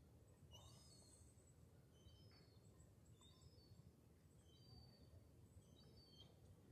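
Near silence, with faint high bird chirps coming in small clusters of short notes about once a second over a low background rumble.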